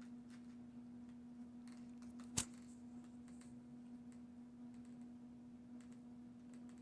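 Dog gnawing a rawhide bone: faint, irregular chewing clicks, with one sharper click about two and a half seconds in, over a steady low hum.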